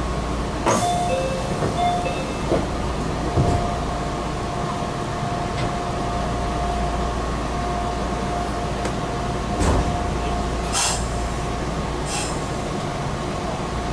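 Meitetsu 6000 series electric train heard from the cab: a steady running hum with a thin high tone. A few sharp clicks and knocks come through, as the train sets off after its doors close.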